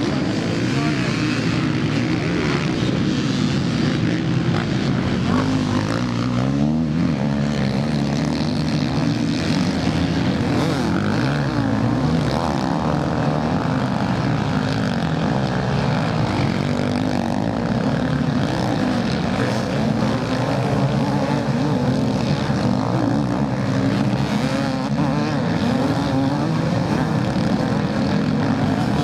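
Several motocross bikes racing on a dirt track, their engines revving over one another with the pitch repeatedly rising and falling as the riders work the throttle.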